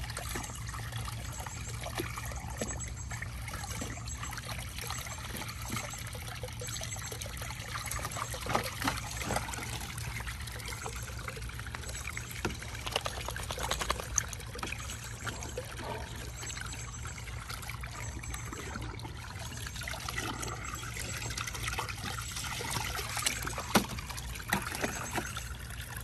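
Garden hose running water into a plastic kiddie pool with a steady trickling, broken by occasional sharp splashes as a dog paws and bites at the water jet.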